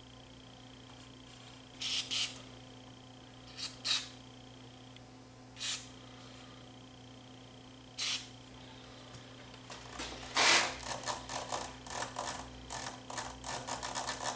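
Aerosol contact cleaner squirted through its red extension straw into the bass and treble potentiometers: about six short hisses over the first eight seconds. From about ten seconds in comes a quick run of scratchy rubbing as the control shafts are turned back and forth to work the cleaner into the pots.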